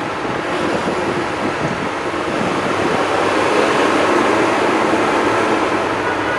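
Steady, loud city street traffic noise, a continuous roar with no distinct events.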